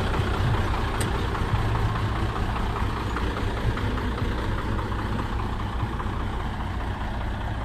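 A truck's diesel engine idling steadily.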